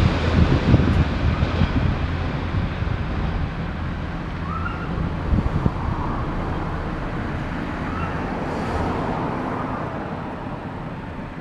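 Diesel railcar rumbling away down the line, with a few wheel knocks on rail joints, the rumble slowly fading as it recedes.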